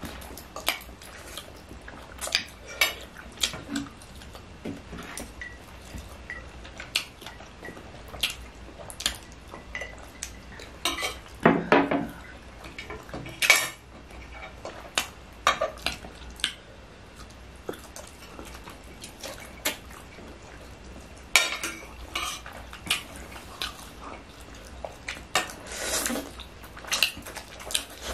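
Metal forks and spoons clinking and scraping against the dish as instant noodles are twirled and scooped, in many short sharp clicks, with a few longer bursts of noodle slurping.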